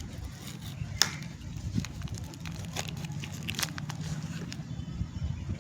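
A soap bar's packaging being unwrapped by hand: irregular crackling and tearing of the wrapper, with the sharpest crackle about a second in.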